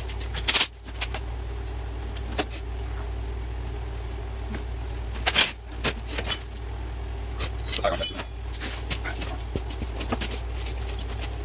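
Scattered metallic clinks and clanks of tools and suspension parts while an ATV's front A-arm and hub are being fitted, the sharpest about half a second, five and a half and eight seconds in, over a steady low hum.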